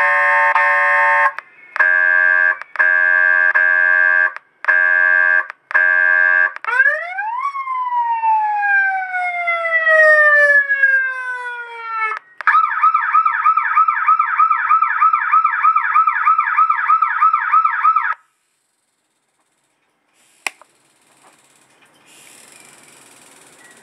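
HF-2020A police motorcycle electronic siren running through its tone modes. First comes a steady tone sounded in several short blasts, then a few quick rising sweeps and one long falling glide. After that comes a fast warble of about four cycles a second that cuts off suddenly, followed by a single click.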